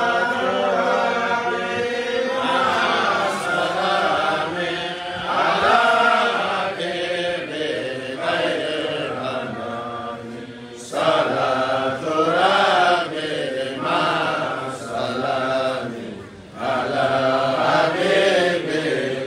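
A man's voice chanting an Islamic devotional chant in long, drawn-out melodic phrases, with short breaks for breath about 11 seconds and 16 seconds in.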